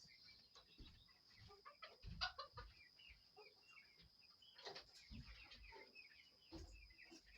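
Chickens clucking and calling softly, many short scattered calls, with a few dull low thumps.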